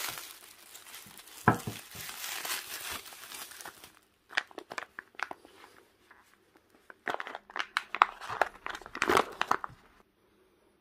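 Plastic packaging, bubble wrap and a clear plastic sleeve, crinkling and rustling as it is torn open and pulled off a wristwatch. It comes in irregular bursts, with a sharp snap about a second and a half in, and stops shortly before the end.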